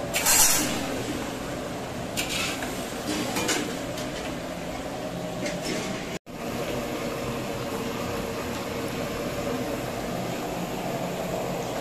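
Large gas stove burners running with a steady rush under big aluminium pots of curry, with a few metal clinks of a ladle against a pot in the first half.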